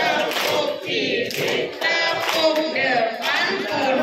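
A group of voices singing together, with people clapping their hands in rhythm.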